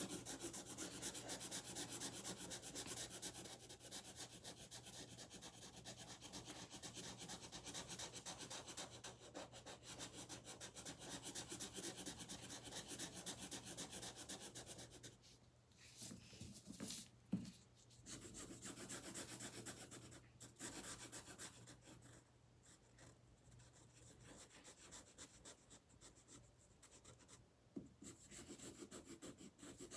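Felt-tip marker scribbling on paper in quick back-and-forth coloring strokes, faint. The strokes ease off about halfway through and again through much of the last third, with a single small tap in the middle.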